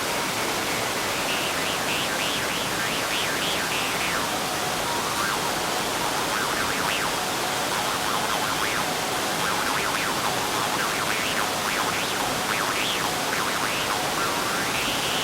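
Steady roar of a waterfall, with an iron jaw harp twanging faintly through it, its overtones sliding up and down in short melodic runs; the harp is nearly drowned out by the falls.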